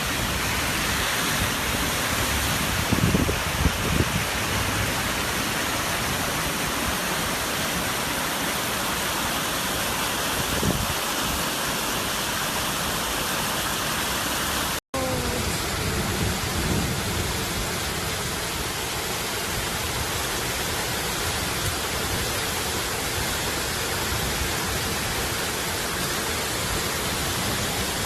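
Heavy rain pouring down, a steady loud hiss, with a few short low rumbles a few seconds in. The sound cuts out for a split second about halfway through.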